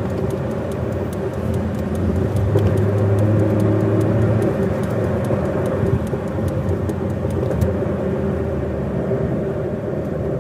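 Steady engine hum and tyre noise inside the cabin of a car moving with city traffic, the hum swelling a little a few seconds in.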